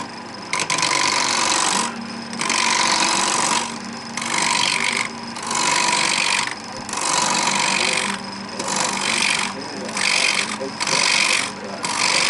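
A roughing gouge cutting a spinning wooden handle blank on a lathe, in about ten separate passes of rough scraping noise with short pauses between, while the lathe hums steadily underneath.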